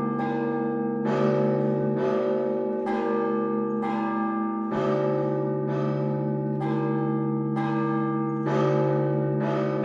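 Church bells ringing: smaller bells struck about once a second over the long, steady hum of larger, lower bells.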